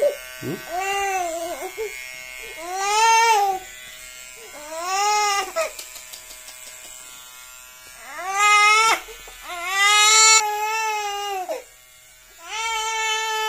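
Toddler crying in about six separate wails, each rising and then falling in pitch, the longest and loudest about ten seconds in, while having her head shaved. A small cordless electric hair clipper buzzes steadily underneath.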